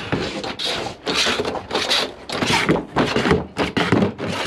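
Hand seamer slid and squeezed along the folded edge of sheet-metal trim stock, flattening a hem: a metal scraping and rubbing in repeated short strokes, about two a second.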